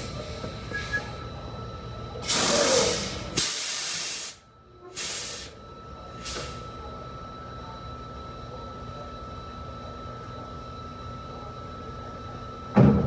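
A semi truck's air brakes hiss in several bursts as the parking brakes are set: the longest hiss comes about two seconds in, followed by three shorter ones. A diesel engine idles underneath, and a loud thump comes near the end.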